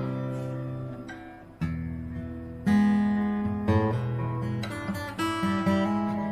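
Acoustic guitar strumming chords and letting them ring: a chord dies away, then fresh strums come about a second and a half in and roughly once a second after. The reverb comes from an X2 Double pickup's built-in effects, which sound through the guitar body itself with no amplifier.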